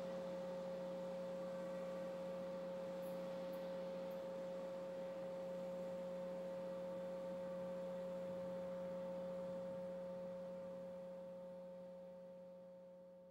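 A steady hum with one clear held tone over a lower drone, fading out over the last few seconds.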